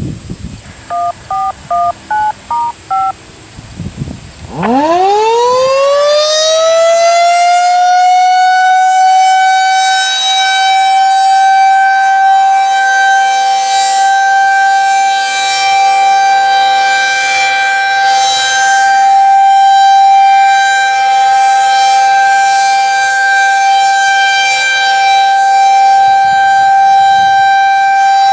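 A short string of about eight touch-tone (DTMF) beeps. Then a Federal Signal 2001-SRNB rotating electromechanical siren winds up, its pitch rising quickly and levelling off into a steady high tone. The tone swells and fades slightly as the rotating head turns.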